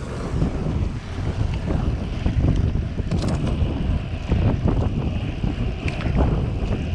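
Wind buffeting the microphone of a camera on a moving road bike: a gusty, uneven rumble with a few faint clicks.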